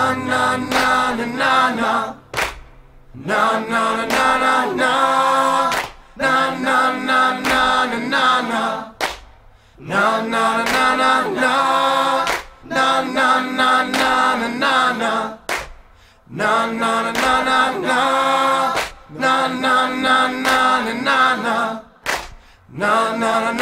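Vocal music: several voices singing together in harmony, in phrases of a few seconds each, broken by short pauses.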